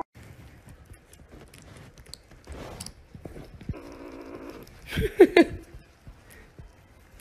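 Fluffy white kitten biting and gnawing on the end of a brown tube: faint scratchy clicks and rustling, a rough hissing stretch about four seconds in, then a short wavering cry about five seconds in, the loudest sound.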